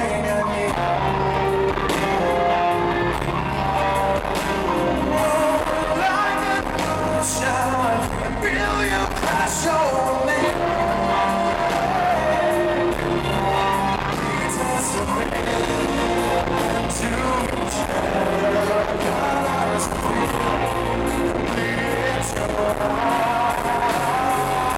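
Live rock band performing with a male lead vocal: the singer's voice carried over strummed acoustic guitar, electric guitars, bass and drums, all at a steady level.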